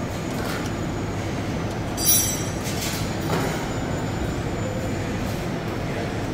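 Steady background noise of a busy car workshop in an underground parking garage, with a brief sharp clatter about two seconds in and a smaller one a second later.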